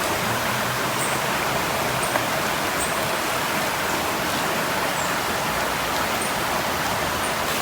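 River water rushing steadily over rocks, with faint high chirps about once a second.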